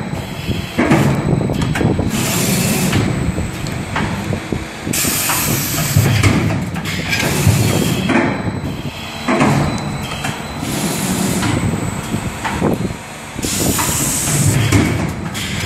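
Motorcycle brake cable wire melting-cut and bumping machine running: a steady mechanical rumble with a hissing burst every second or two.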